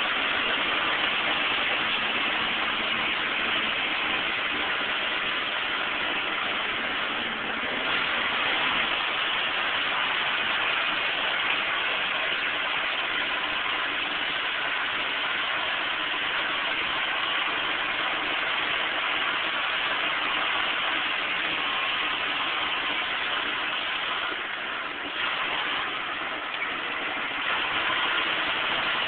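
Truck engine running at low speed with steady road and tyre noise from a rough dirt road, heard from inside the cab.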